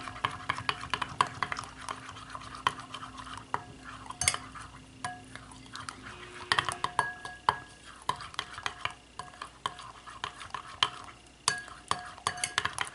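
A utensil stirring thick aloe vera gel mixture in a glass bowl, with irregular clicks and scrapes as it knocks against the glass.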